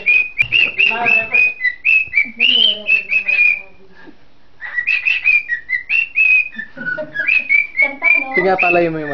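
Cockatiel whistling its song close into a microphone: quick runs of short whistled notes near one pitch, broken by a pause of about a second midway, with a few rougher, lower chattering notes mixed in.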